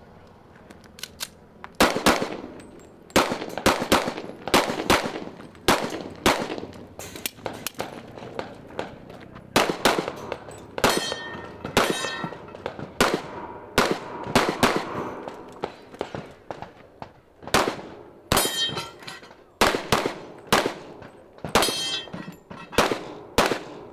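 Pistol shots fired in quick pairs and short strings, starting about two seconds in, with steel targets clanging and ringing briefly as they are hit.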